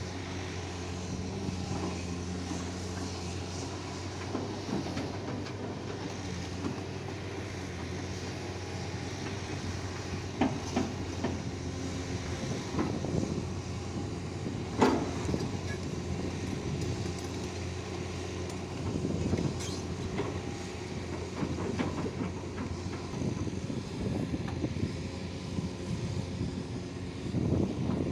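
XCMG 250LC excavator's diesel engine running steadily, with scattered metallic clanks and knocks, the loudest about 15 seconds in.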